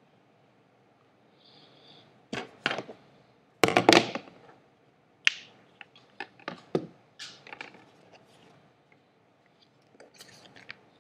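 Bamboo stick and craft-foam sheets handled on a wooden desktop: after a quiet start, a run of sharp knocks and clatter, loudest about four seconds in, then scattered lighter taps.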